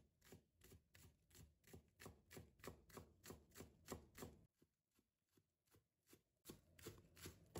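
Chinese cleaver chopping scallions on a bamboo cutting board: faint, quick, even knife strokes about three to four a second, with a short pause in the middle before the chopping resumes.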